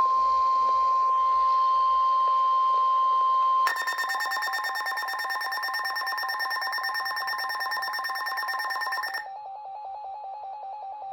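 A weather radio's steady single alert tone sounds for nearly four seconds. It then gives way to rapid, shrill electronic alarm beeping, which drops to a quieter, lower pulsing beep about nine seconds in. Together they are the warning alarm of weather radios going off for a new alert.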